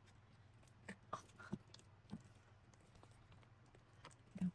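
A few faint, short wet clicks and squelches of old, watery slime being stirred and worked with activator.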